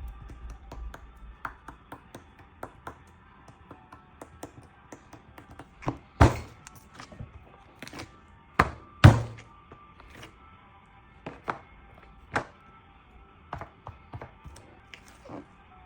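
Slime being poked and squeezed, making irregular sharp clicks and pops, with two louder pops about six and nine seconds in, over soft background music.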